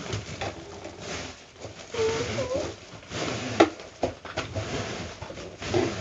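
Clear plastic wrapping rustling and crinkling as a coiled hose is pulled out of its bag, with small clicks and crackles throughout. About two seconds in, a short pitched vocal sound is heard.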